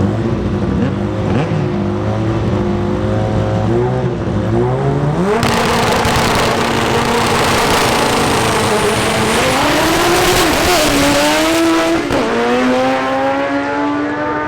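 Drag race car engine revving unevenly at the start line, then launching about five seconds in and running hard at high revs with loud rushing noise. Its pitch dips and recovers around gear changes and climbs steadily near the end.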